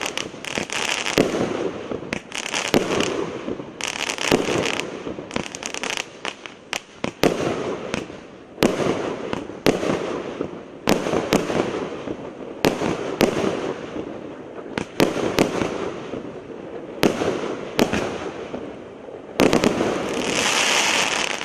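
Consumer firework battery firing shot after shot: sharp bangs every half-second to second, with crackling between them. Near the end comes a dense stretch of crackle lasting about two seconds before the battery falls quiet.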